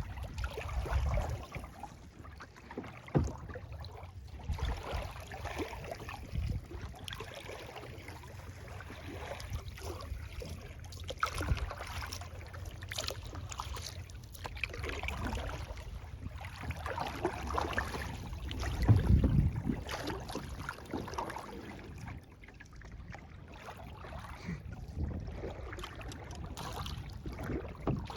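Kayak paddle strokes dipping and splashing in lake water, with dripping and lapping between strokes over a steady low rumble. One louder low thump comes about two-thirds of the way through.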